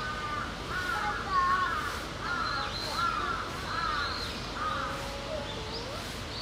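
A crow cawing in a quick run of about seven short arching calls, with thinner, higher bird calls above it.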